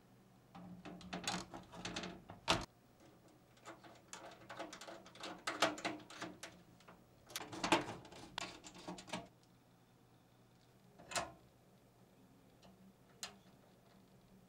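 A motherboard being set into a steel PC case and screwed down with a screwdriver: irregular clatter and scraping of the board, screws and metal case. Then two single sharp clicks a couple of seconds apart near the end.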